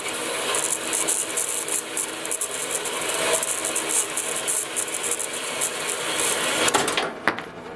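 Harbor Freight band saw cutting through metal stock, a steady rasping, rattling cut under the motor's running. Near the end a brief clatter as the blade breaks through, then the saw runs on more quietly with no load.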